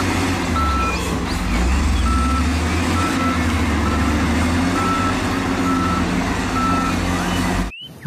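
SDLG wheel loader's diesel engine running steadily while its reversing alarm beeps about once a second as the machine backs up on a sand pile. The sound cuts off suddenly just before the end.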